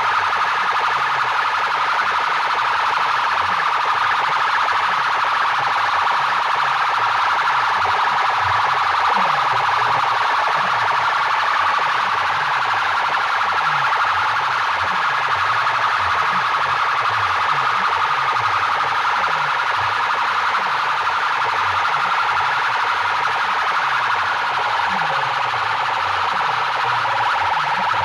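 Large sound-box speaker rigs blasting a loud, distorted siren-like electronic effect: a steady harsh wail over rapidly repeating falling low sweeps.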